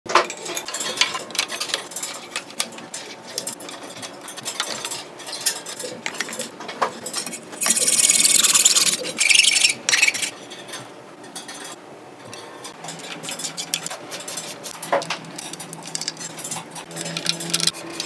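Clicks, taps and rubbing of metal and carbon bike parts and tools being handled while components are fitted to a carbon road bike frame. A louder scraping rasp starts about eight seconds in and lasts about two seconds.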